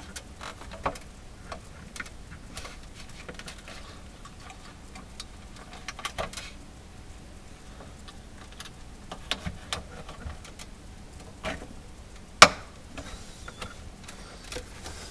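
Scattered small plastic clicks and taps as a low-wattage drain heater and its wire are fitted into the drain hole at the bottom of a refrigerator compartment, with one sharp, louder click near the end.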